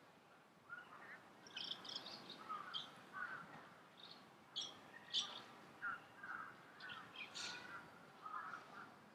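Birds calling: a run of short chirps at two pitches, some low and some higher, coming in quick succession, fairly faint.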